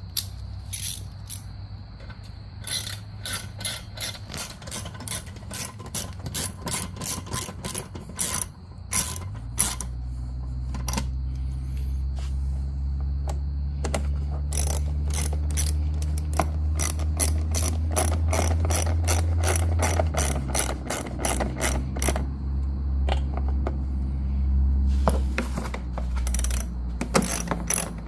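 Hand ratchet wrench clicking in quick runs of strokes, tightening bolts. From about nine seconds in, a steady low motor hum joins and changes pitch around twenty seconds.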